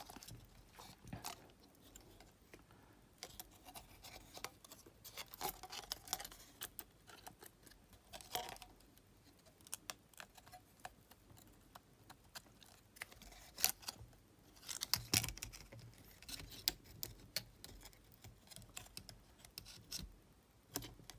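Faint, scattered clicks and scrapes of small plastic and metal parts being handled: the cassette mechanism and circuit board of a Sony TCM-450 Walkman being fitted together by hand and with tweezers. The clicks come in irregular clusters, busiest a few seconds in and again around the middle.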